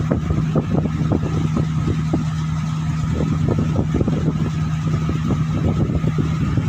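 A steady low motor hum with a fainter high tone above it, and soft irregular ticks and rustles throughout.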